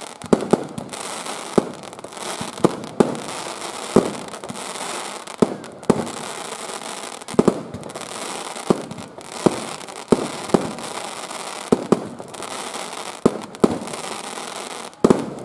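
Aerial fireworks going off close by: a rapid run of sharp bangs, two or three a second and some in quick pairs, over a continuous crackle of bursting stars.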